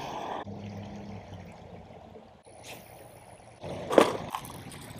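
Steady rushing, water-like noise, broken by a sharp plastic click about four seconds in as a plastic tackle box of lures is handled.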